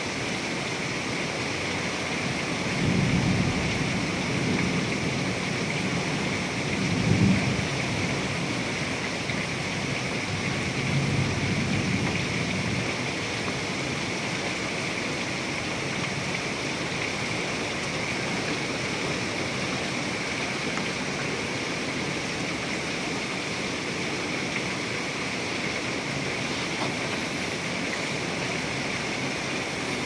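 Heavy rain pouring steadily in a severe thunderstorm. Thunder rumbles in low rolls between about two and thirteen seconds in, loudest about seven seconds in.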